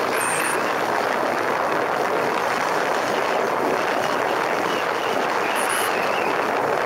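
Motorcycle at speed: a steady rush of wind and road noise on a helmet-mounted camera's microphone, with the engine running underneath.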